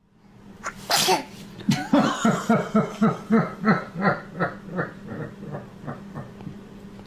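A sneeze about a second in, followed by a long run of rhythmic laughter, about three laughs a second, fading out. A faint steady hum runs underneath.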